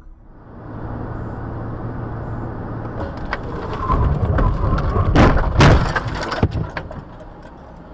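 Car collision heard from inside a moving car: steady road noise, then from about three seconds in a run of knocks and crunches, with the two loudest impacts a little past the middle, followed by scattered clattering.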